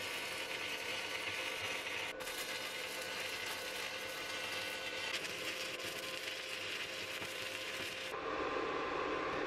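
Stick (electrode) arc welding on steel: the arc crackles and hisses steadily as a bead is laid along the joint of a plate and a channel. About eight seconds in the sound turns duller.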